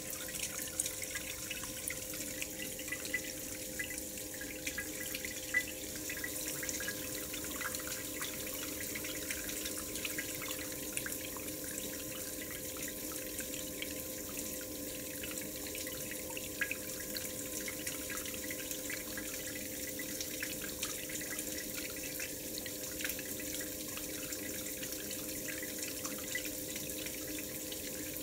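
Water running steadily through a gold-cup concentrator's hose feed and swirling tube, with constant splashing and small drips, and a steady hum underneath.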